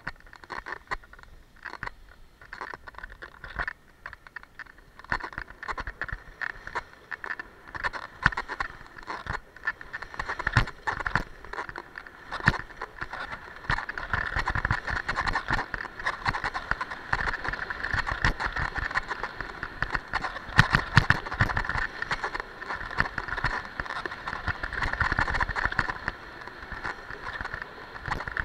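Skis running down a packed snow piste: a scraping hiss from the skis on the snow with many small knocks and clatters throughout, growing louder about halfway through.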